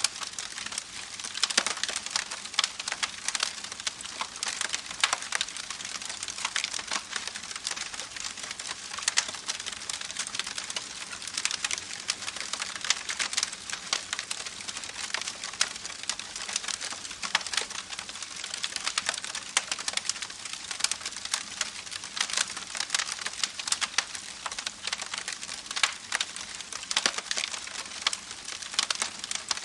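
Campfire burning with dense, irregular crackling and popping of wood over a steady hiss.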